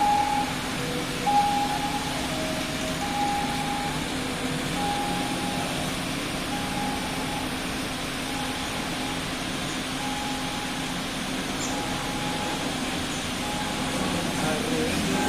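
A simple electronic melody of short beeping notes at a few pitches, repeating about every second and a half and growing fainter, over steady background noise with a low hum.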